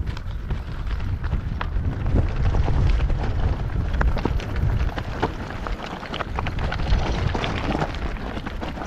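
Mondraker Crafty R 29 e-mountain bike being ridden over a rough track: a constant, irregular crackle and rattle of the tyres and bike over stones, under a low wind rumble on the microphone.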